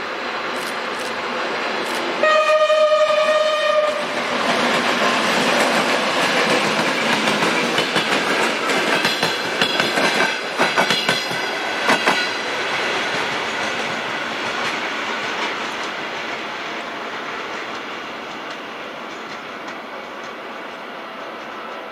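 ChME3 diesel locomotive sounding one steady horn blast of nearly two seconds about two seconds in, then passing with its passenger coaches: engine and running noise with wheels clacking over rail joints, fading as the train moves away.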